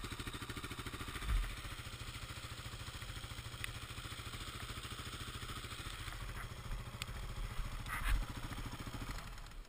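Dirt bike engine idling with a steady, even beat, then stopping just before the end, with a couple of knocks from the bike being handled as it lies on its side.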